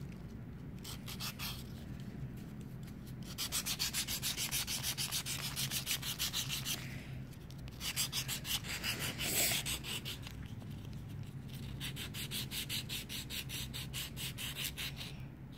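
A nail file rubbed back and forth over a crumpled aluminium-foil ball, smoothing its surface. The strokes are rapid and scraping, several a second, and come in stretches with short pauses between them.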